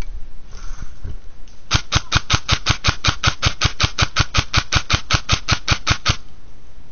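Airsoft gun firing a rapid, even string of about two dozen shots, roughly six a second, starting nearly two seconds in and stopping about six seconds in.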